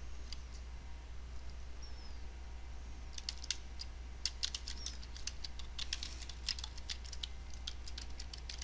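Typing on a computer keyboard: irregular key clicks, a few at first and then quick runs from about three seconds in, as an email address is entered, over a steady low hum.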